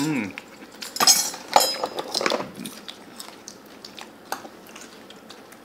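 Tableware and food-container handling at a meal: a cluster of short knocks, clinks and rustles about a second in, one with a brief ring, then a few scattered faint clicks.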